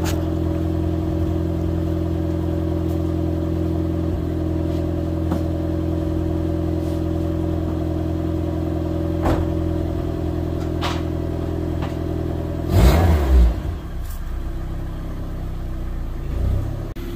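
Honda CRX engine idling steadily while warming up after sitting unstarted for months. About thirteen seconds in there is a brief loud burst, and then the engine note changes as the car starts to back out of the garage.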